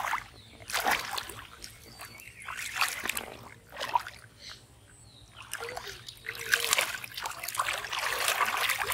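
Irregular splashing and sloshing of shallow muddy water, a few separate splashes at first, then almost unbroken splashing in the second half as hands and feet work through the water.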